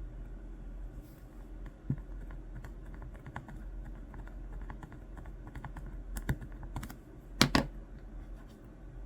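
Light, irregular clicks and taps of small parts and tools being handled during a watch repair, with a few sharper clicks near the middle and the loudest about three quarters of the way in.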